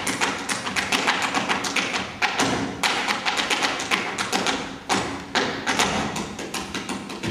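Hambone body percussion, hands slapping and patting thighs and chest in a fast steady rhythm, mixed with the taps of step-dancers' hard shoes on a wooden stage floor.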